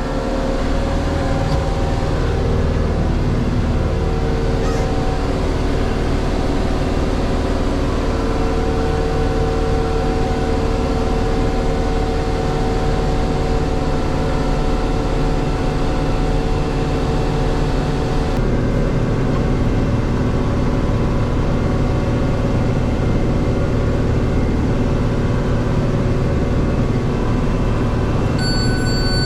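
Oliver 1755 tractor running steadily under load while pulling a round baler through a hay windrow, an even engine and driveline drone with several steady whining tones from the baler. A steady high tone comes in near the end.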